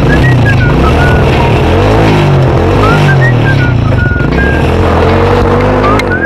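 Engine of a motorcycle built around an old diesel engine converted to run on petrol, running, with a music melody playing over it.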